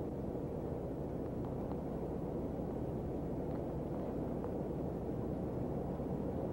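Steady low rumble of a car running, heard from inside the vehicle, with a few faint clicks about two to four seconds in.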